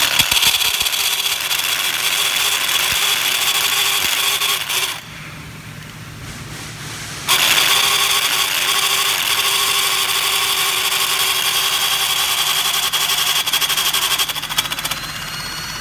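14.4-volt cordless drill spinning a piston flycutter through its guide, cutting a valve relief into an aluminum piston of a GM L99 engine. It runs as a steady high whir in two runs, about five seconds and then about seven seconds long, with a pause of about two seconds between them.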